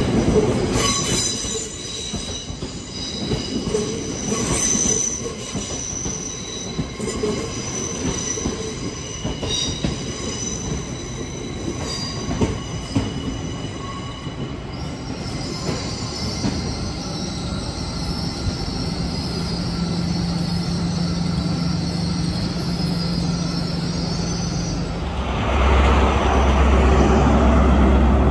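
Passenger train's steel wheels squealing on a curved platform road for the first dozen seconds, with several high squeals rising and fading as the coaches pass. Then a steady high electrical whine from a standing train. Near the end, a loud low diesel rumble from an HST power car sets in.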